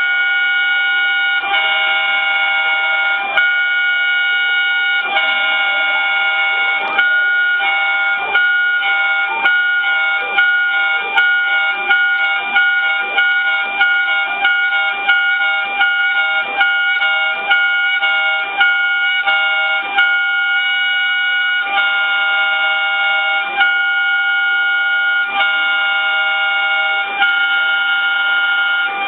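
Spindle and axis motors of a mini 5-axis CNC router machining an impeller: a steady whine on a few fixed pitches, pulsing in a regular rhythm as the cutter passes. The pulses come about every second and a half at first, then quicker through the middle.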